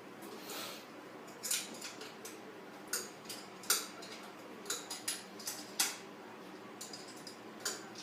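Metal parts and hand tools clinking and knocking, a dozen or so irregular sharp clicks, the loudest two just under 4 s and about 6 s in.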